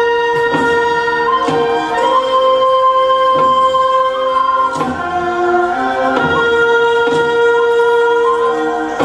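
Music accompanying a traditional Korean dance: a slow melody of long held notes, with a sharp strike about every second and a half.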